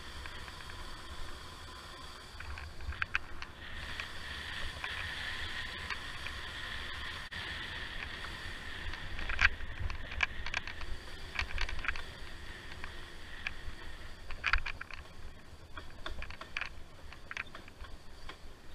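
Wind rumbling on a helmet-mounted camera's microphone while riding, with a steady high whine and scattered clicks and rattles, thickest in the middle and later part.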